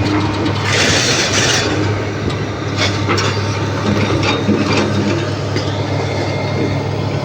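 Excavator's diesel engine running steadily with a low hum. A burst of hiss comes about a second in, and a few sharp knocks follow around three seconds in.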